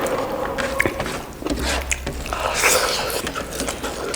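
Close-up eating sounds: wet chewing of buffalo innards with scattered small clicks, and a short louder noisy rush about two and a half seconds in.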